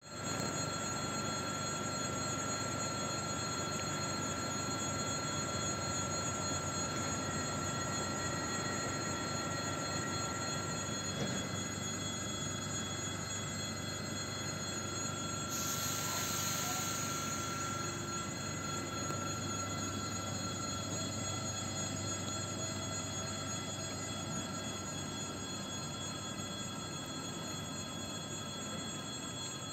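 EG2Tv Ivolga electric train at a platform: a steady electrical whine with several constant tones from its on-board equipment. About fifteen seconds in comes a hiss lasting a couple of seconds, then the train moves off and its sound slowly fades.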